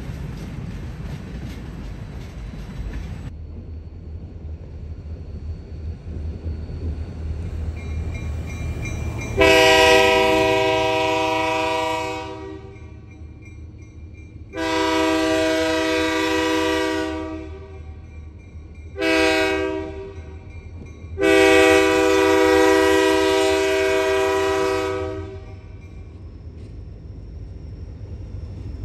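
Freight cars roll past on the rails for about three seconds. After an abrupt change, a diesel locomotive nearing a street crossing sounds its multi-chime air horn in the long-long-short-long grade-crossing signal, over a low rumble.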